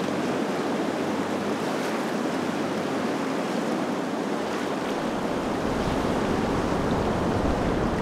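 Steady rush of river rapids, an even roar of white water. A low rumble joins about five seconds in.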